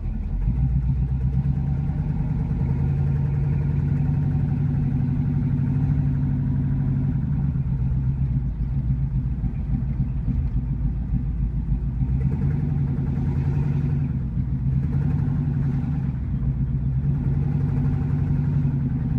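Ford 289 V8 with a big Lunati Voodoo cam running as the 1965 Mustang is driven at low speed, the engine note shifting a little up and down with the throttle.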